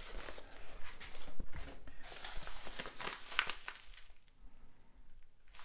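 Brown paper mailing envelope rustling and crinkling as hands rummage inside it. The rustling dies away about four seconds in.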